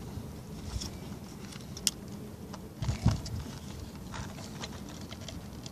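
Small clicks and rustles of a plastic fuel-pump strainer being handled and pushed onto the pump's inlet by hand. There is a sharp click about two seconds in and a louder bump about three seconds in.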